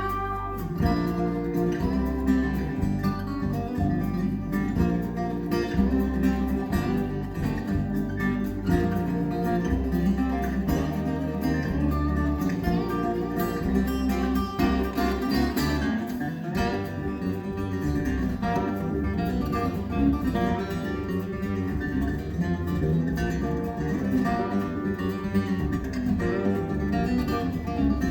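Recorded acoustic guitar music playing through a pair of Magnepan LRS planar-magnetic panel speakers, with steady, strong bass notes underneath.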